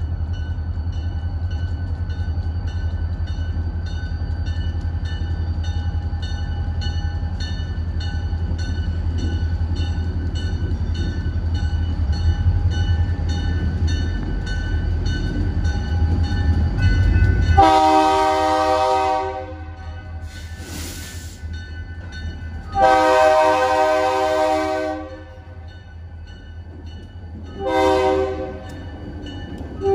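Diesel locomotives rumbling low and steady as they pull a train slowly toward the camera. Then, from a bit past halfway, the lead locomotive's multi-chime air horn sounds loud blasts: two long, a short, and a fourth starting at the very end. It is the long-long-short-long grade-crossing signal.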